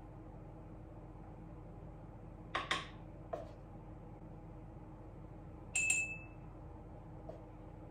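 Small clicks and taps of a utensil and containers handled on a lab bench while powder is weighed out, with a brief ringing clink about six seconds in.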